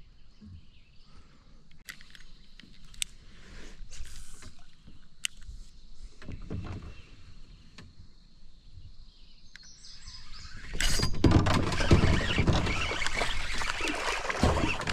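Kayak on the water: scattered light knocks and clicks against the hull with soft water movement, then from about two-thirds of the way through a much louder, steady rush of splashing water, as from paddling.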